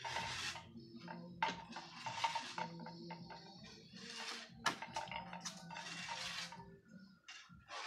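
Nylon netting rustling and scraping against a bamboo fence as it is handled and fastened, in short irregular bursts with a few sharp clicks, over faint steady tones.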